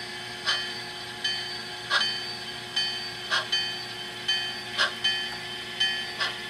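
HO-scale model steam locomotive's DCC sound decoder playing slow, evenly spaced steam chuffs, a little over one a second, through the locomotive's small onboard speaker as it runs at low speed.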